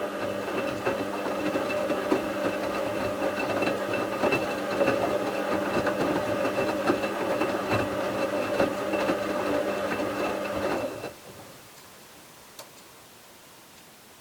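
Bauknecht WA 7778 W front-loading washing machine's motor turning the drum of towels during the wash, a steady motor whine with small clunks and clicks from the tumbling load; about eleven seconds in the motor stops for a rest pause. The drum bearing is, by the owner's account, already beginning to fail.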